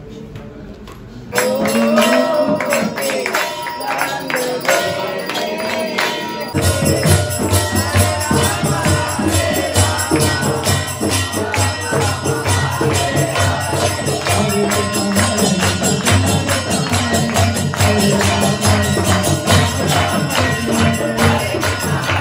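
Devotional aarti singing, starting about a second in. About six seconds later a steady drum beat and fast, jingling metal percussion join in and carry on under the singing.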